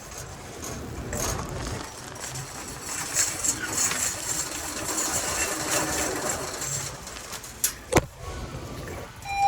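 Supermarket background noise: a steady clatter with faint voices, and a sharp knock about eight seconds in.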